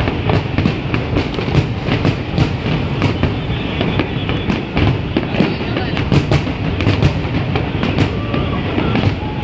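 Fireworks display going off in rapid succession: a dense, unbroken string of sharp bangs and crackles over a continuous rumble.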